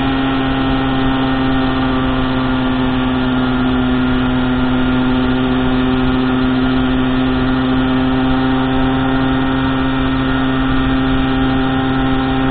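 Small motorbike engine running at a steady, unchanging pitch while cruising at constant speed, an even drone with road noise beneath.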